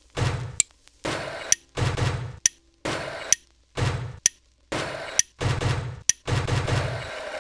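A rhythmic sound-effect loop: a short noisy rush ending in a sharp crack, repeated evenly about once a second, around eight times.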